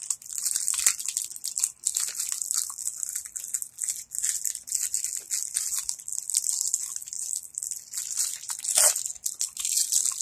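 Crinkling and rustling of a plastic candy bag of Brach's jelly bean nougats handled right at the microphone, a dense run of quick irregular crackles with a louder rustle near the end.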